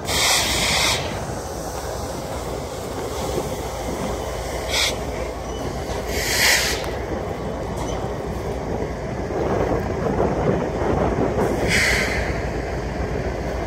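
CSX freight train's diesel locomotives rolling slowly past close by, the engines rumbling steadily under the sound of wheels on the rails. Short high hissing squeals come through four times.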